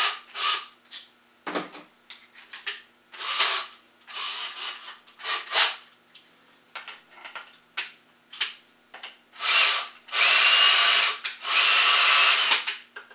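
Ryobi cordless drill with a 1/4-inch bit, run in a string of short trigger bursts and then three longer runs of about a second each near the end, drilling holes through a 3D-printed plastic part.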